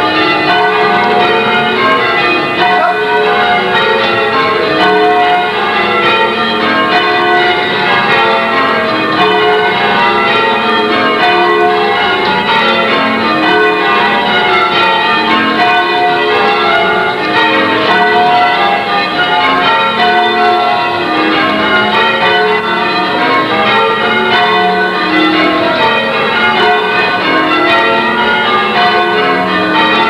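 Church bells rung in changes by a band of ringers pulling the bell ropes: a steady, unbroken run of bell strokes following one another in quick succession.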